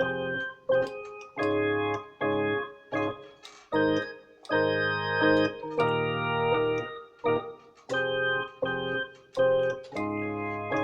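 Casio CTK-3500 keyboard playing its jazz organ voice (tone 049): a series of short held chords, each starting and cutting off cleanly as the keys are pressed and released.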